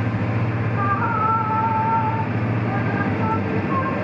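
Sightseeing boat's engine running steadily with a low drone, under the rush of wake and spray along the hull, heard from inside the cabin.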